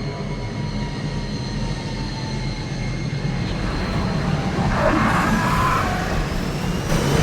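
Omicron-class shuttle landing sound effect: a steady low engine rumble with faint high whining tones, and a louder hiss swelling about five seconds in.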